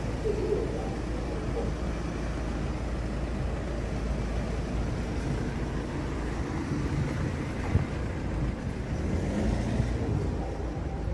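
Outdoor town ambience: a steady low rumble with no single sound standing out.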